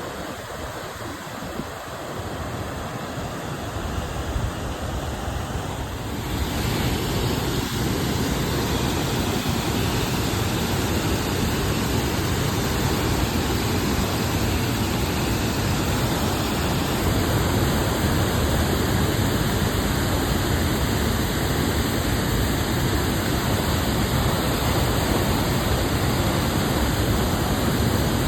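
Steady rush of floodwater pouring through a river dam's open spillway gates, swollen by heavy rain; it gets louder about six seconds in.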